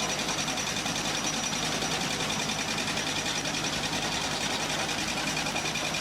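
HWL300R solar pile driver working, a fast, steady mechanical rattle with a high whine over its running engine.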